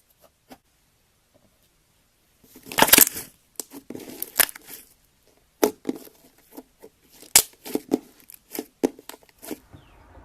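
Slime being worked, giving irregular sticky pops and crackles, with a denser stretch of crackling about three seconds in.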